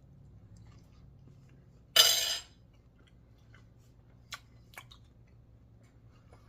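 Eating a bite: a fork or knife clatters briefly against the plate about two seconds in, followed by quiet chewing with a few small clicks.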